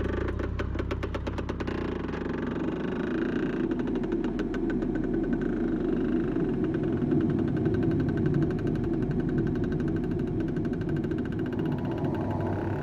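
Motorcycle engine running under load as it pulls a boat away across sand. Its exhaust beats come quick and even at first, then it settles into a steady, rough running.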